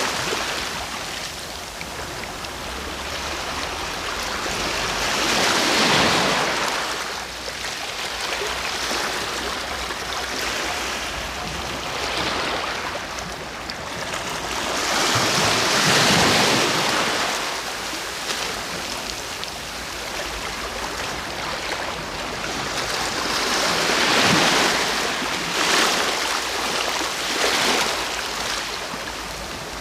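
Ocean waves breaking on the shore, a steady wash of surf that swells as the bigger waves break, about every eight to ten seconds, with smaller ones near the end.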